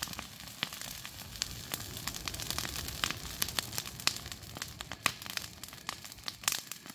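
Wood bonfire burning hard, crackling with many sharp, irregular pops over a steady low rush of flame.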